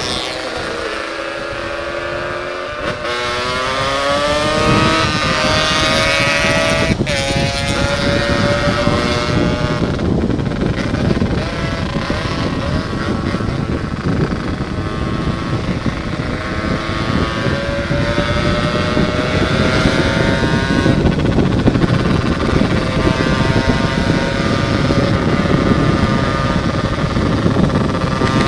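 Yamaha RX-King two-stroke single-cylinder engine through an aftermarket expansion exhaust, riding hard: the engine note climbs and drops sharply at gear changes about three and seven seconds in, then holds high and climbs again near the end. Rushing wind on the microphone grows as speed builds.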